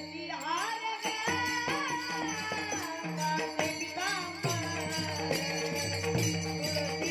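Varkari devotional bhajan: a boy's voice singing gliding, drawn-out phrases over many small hand cymbals (taal) clashing in a steady rhythm, with steady held drone tones underneath.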